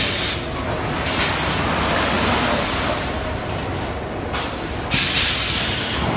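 Automatic puzzle die-cutting and breaking machinery running steadily, with sharp clunks and several bursts of pneumatic air hiss.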